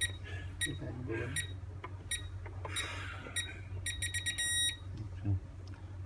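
Visonic PowerMax Express alarm panel keypad beeping once for each key press as a phone number is entered, single short beeps every half-second or so. About four seconds in comes a quick run of beeps as the number is accepted and the panel moves on to the next phone-number entry.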